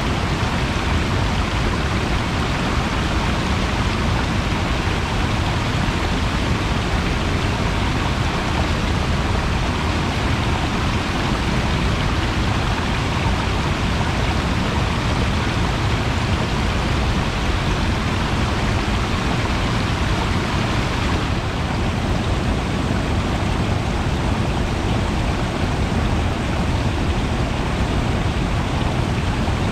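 Steady rushing water, an even hiss over a heavy low rumble, turning slightly duller about two-thirds of the way through.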